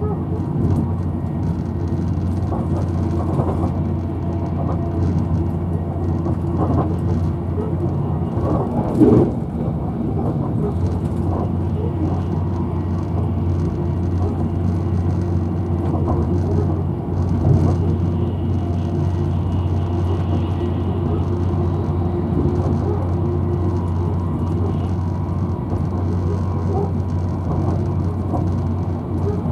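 Inside a Virgin Trains Class 390 Pendolino electric train running at speed: a steady low rumble and hum of the carriage on the rails. A louder knock comes about nine seconds in, and another just past halfway.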